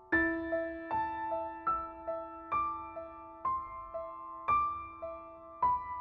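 Slow solo piano background music: single notes struck about once a second, each dying away, over a held low note.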